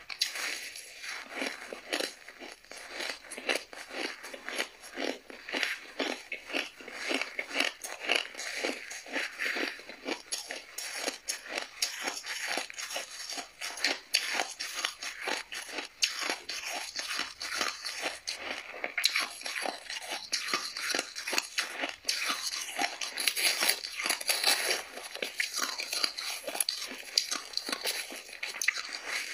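A mouthful of shaved ice being bitten and chewed: dense, rapid, irregular crunching that goes on steadily.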